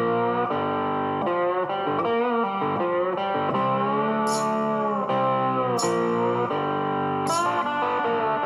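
Background music: a guitar instrumental with notes bending up and down, without singing.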